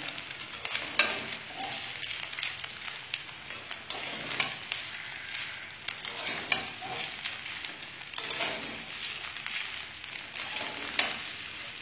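Metal spatula stirring and scraping through crispy fried flattened rice, papad and scrambled egg in a steel wok, with repeated irregular scrapes and clicks against the pan over a steady hiss.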